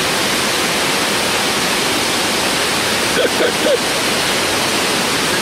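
Steady rushing of a waterfall pouring over rock ledges into a pool. A few short distant calls break through about three seconds in.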